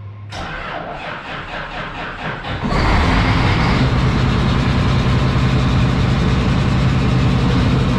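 Combine's diesel engine cranking over on the starter in even beats, catching about two and a half seconds in and then running loud and steady.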